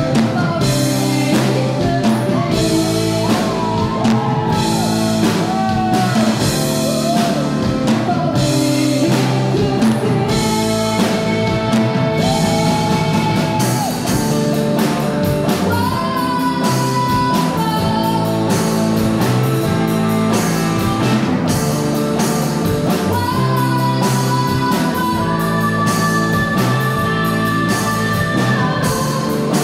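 Indie rock band playing live: a woman singing lead over electric guitars, bass guitar and a drum kit keeping a steady beat.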